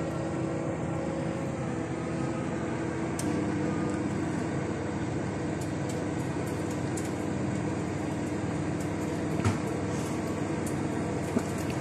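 Steady whirring hum of a household appliance, with a few faint light clicks.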